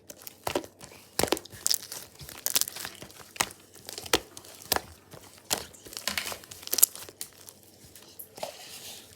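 Paper being handled and flipped, crinkling and rustling in irregular sharp crackles, with one louder crackle near the end.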